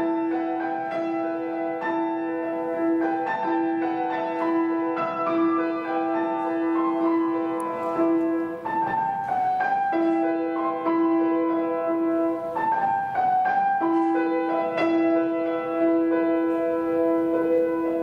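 Grand piano played solo: a quick figure moving over a steadily repeated middle note, which drops out briefly twice, about nine and thirteen seconds in.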